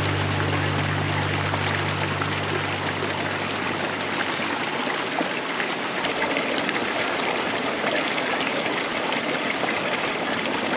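Shallow creek water running over rocks, a steady rush. A low held tone fades out in the first few seconds.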